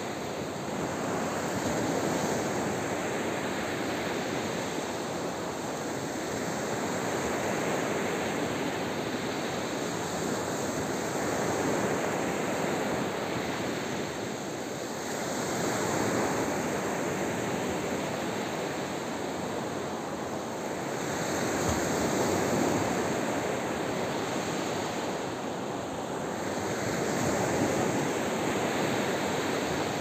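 Sea surf breaking and washing up a sandy beach, a steady rushing that swells and eases about every six seconds as each set of waves comes in.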